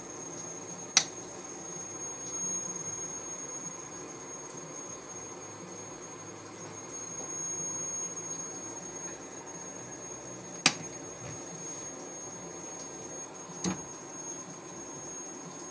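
A hybrid solar inverter running with a steady electrical hum and a thin high whine, broken by three sharp clicks: one about a second in and two more in the second half, three seconds apart.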